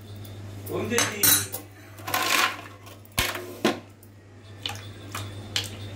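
Ice cubes dropped into a glass of sharbat, clinking against the glass in a series of separate knocks.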